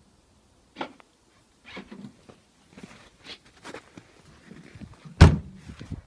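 Remote-released boot lock on an Opel Vectra B: a sharp click about a second in and some small scuffs and clicks, then one loud thunk about five seconds in as the boot lid unlatches and pops ajar.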